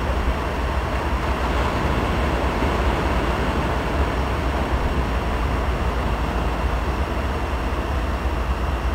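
Steady roar of ocean surf, with a low rumble of wind on the microphone.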